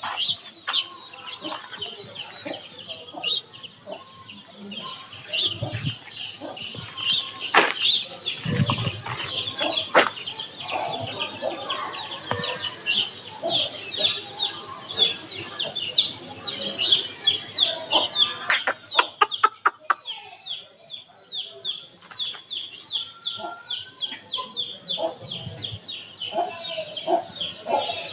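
A flock of Indian country chickens clucking and calling over one another in quick short notes, with wings flapping; a quick run of sharp clatters about two-thirds of the way through.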